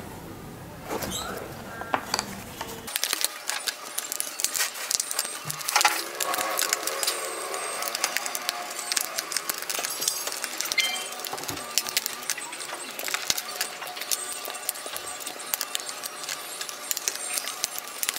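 Thin laser-cut plywood puzzle pieces being pressed out of their sheet by hand: a steady run of small, irregular cracks and snaps as the wooden tabs break, with light clicks of the freed pieces.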